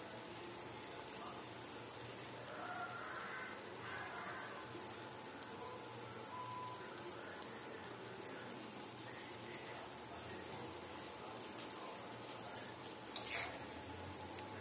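Thick kadhi simmering in a steel pot on a gas burner, a steady low hiss of bubbling. Near the end come a few sharp metal clinks of a ladle against the pan.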